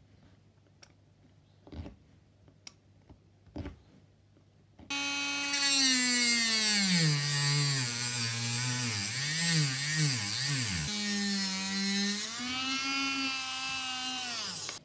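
Small hand-held rotary tool with a cutting disc starting about five seconds in, its whine dropping and wavering in pitch as the disc bites into a resin casting block, rising again as the load comes off, then stopping just before the end. Before it, a few faint scrapes of a razor saw scoring the resin.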